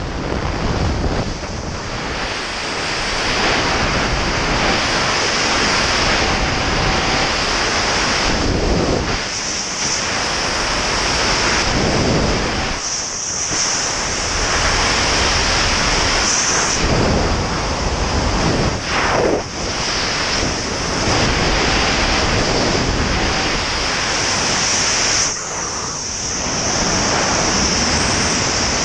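Freefall wind rushing over the camera microphone: a loud, steady roar of air that swells and dips briefly a few times.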